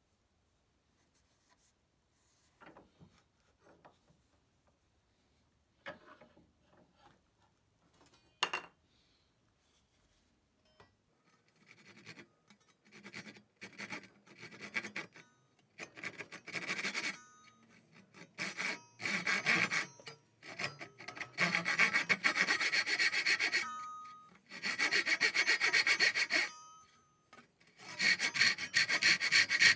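Hand saw cutting a block of purpleheart held in a bench vise. A few light knocks come first; about eleven seconds in, runs of quick rasping saw strokes begin and grow louder, with short pauses between runs.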